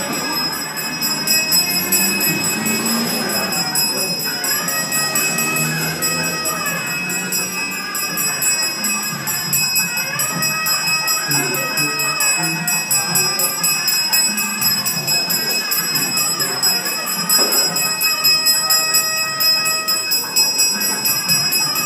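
Brass puja hand bell rung without a break during a Hindu temple ritual, with voices chanting over it.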